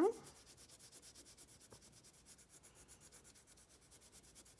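Blue wax crayon rubbing on paper in quick, even back-and-forth strokes, coloring in a shape.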